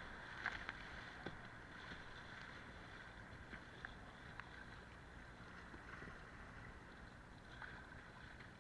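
Kayak running down river riffles: water rushing and splashing against the bow, with a few sharp splashes in the first second, easing to a quieter steady wash as the water calms.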